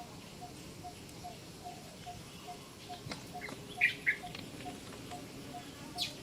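A baby macaque gives two short, high-pitched calls about four seconds in. Behind it, a steady short call or tick repeats about two and a half times a second.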